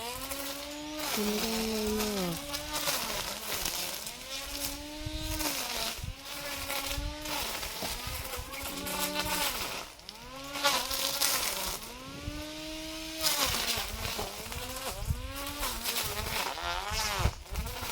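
Lawn mower's small engine running hard while cutting through grass and weeds, its buzzing pitch repeatedly dipping and recovering about once a second as the blade takes the load.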